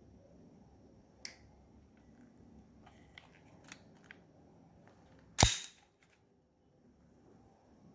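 Gas blowback airsoft pistol firing a single shot about five and a half seconds in, preceded by a few light handling clicks.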